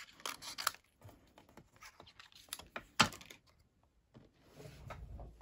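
Light clicks and taps of craft tools and cardstock being handled on a work surface, with one sharp click about three seconds in and a soft low rumble near the end.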